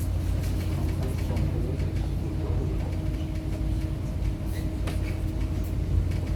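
A river tour boat's engine running steadily, heard on board as a low, even hum with a faint steady tone above it.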